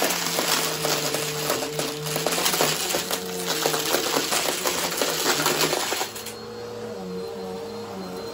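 Bissell upright bagless vacuum running, with a dense clatter of small pieces (sequins and little wooden letter tiles) rattling up through the cleaner head into the dirt cup. The rattling stops about six seconds in, leaving the steady hum of the motor.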